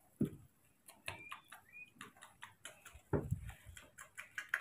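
Light irregular ticks and taps with two dull thumps, about a quarter second in and about three seconds in, from baby macaques scrambling about on a carpeted wooden platform. A couple of faint short squeaks come in the first two seconds.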